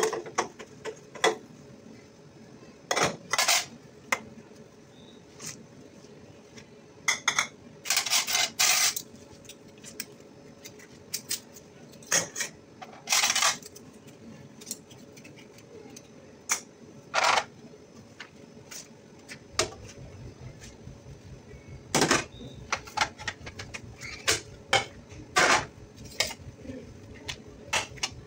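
Dishes being washed by hand at a stainless steel sink: plastic bowls, plates and cutlery knocked and set down in irregular clinks and clatters, with a few short bursts of rubbing from a soapy sponge. A faint steady hum runs underneath.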